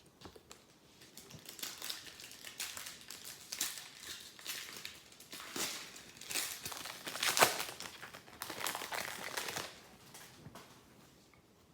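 Foil wrapper of a trading-card pack crinkling and crumpling as it is handled, in irregular rustling bursts that are loudest about seven seconds in and die away about ten seconds in.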